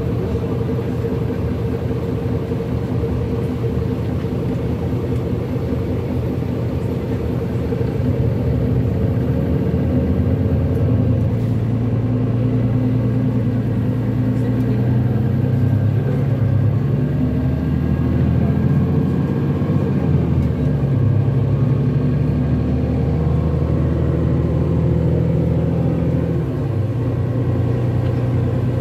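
A vehicle's engine running under way: a steady low rumble whose pitch rises and drops several times as it changes speed.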